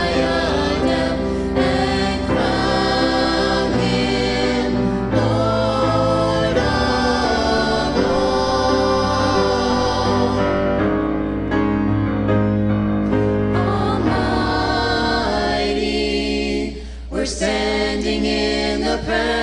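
A small mixed group of men, women and children singing a worship song in harmony into microphones, holding long notes, with a brief dip in loudness a few seconds before the end.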